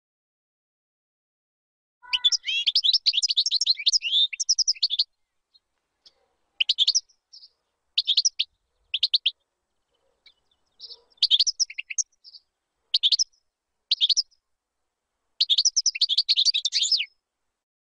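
European goldfinch singing: phrases of rapid, high twittering notes that start about two seconds in, with a long phrase first, several short bursts, and another long phrase near the end, separated by gaps of dead silence.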